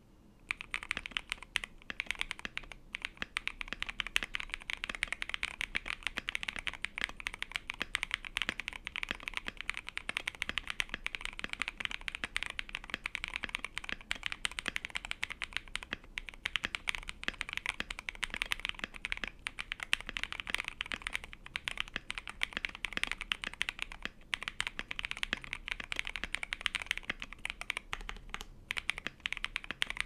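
Continuous fast typing on an Akko ACR Pro 75 mechanical keyboard with lubed Tescee Ice Candy linear switches, a polycarbonate plate, tempest tape and clear ASA keycaps. It is a dense stream of keystrokes that starts about half a second in, with a few brief pauses.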